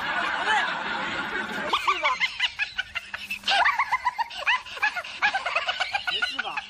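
Music cuts off suddenly just under two seconds in. It is followed by high-pitched snickering laughter: rapid short 'hee-hee' laughs that keep going to the end.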